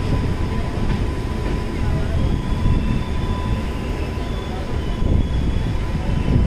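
Passenger train running along the track, heard on board: a steady low rumble of wheels and coach, with a thin steady whine above it.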